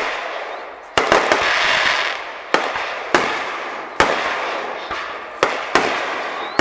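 Aerial fireworks shells bursting overhead: about seven sharp, irregularly spaced bangs, each trailing off into a crackling, hissing wash.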